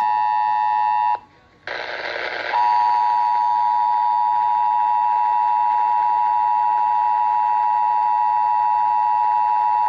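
Emergency Alert System two-tone attention signal: two steady tones just under 1 kHz sounding together, the alert tone that precedes an EAS test message on radio. About a second in it drops out briefly, with a short burst of noise, then resumes steady and loud.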